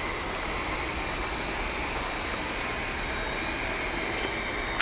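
Hot air PVC welding machine's heat-gun blower running steadily: an even rush of air with a faint high whine.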